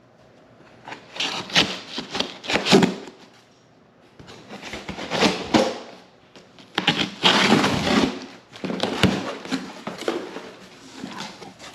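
Rustling and crunching of packaging being handled, in irregular bursts with a few sharp knocks.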